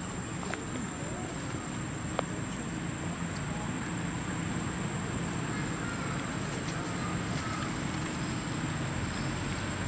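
Steady outdoor background noise: a low rumble under a constant hiss with a thin, high, unbroken tone, and a few faint short chirps in the second half.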